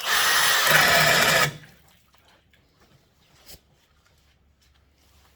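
Cordless hammer drill running under load as its bit bores into Douglas fir, for about a second and a half before it stops abruptly, followed by faint ticks.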